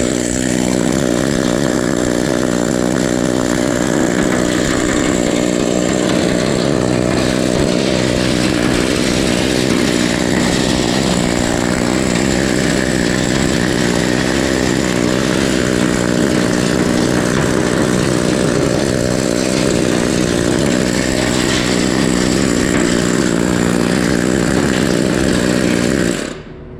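Needle scaler hammering weld slag off the steel of a truck bed, running steadily at full speed, then cutting off near the end.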